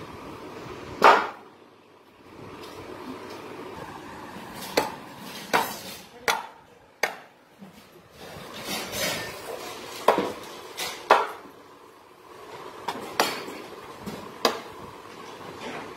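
A large curved chopping knife striking through raw green mangoes onto a wooden chopping block: about a dozen sharp chops at uneven intervals, some in quick pairs, with a longer gap after the first.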